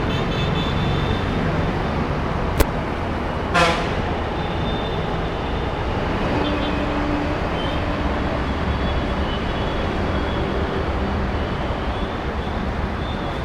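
Steady road traffic noise, with a sharp click and then a short vehicle horn toot a few seconds in.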